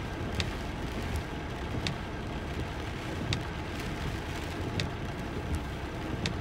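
Steady rumble and tyre hiss heard inside a vehicle's cab as it drives along a wet, rain-covered street. A short tick comes about every one and a half seconds.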